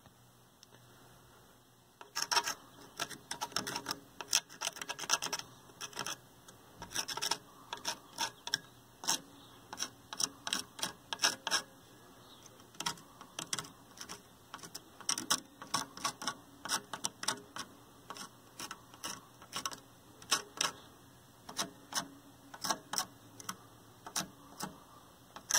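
A pointed metal pick scraping flux and solder flakes out from between the solder pads of a circuit board (a CRT neck board): irregular quick scratches and clicks, sometimes in short clusters, starting about two seconds in.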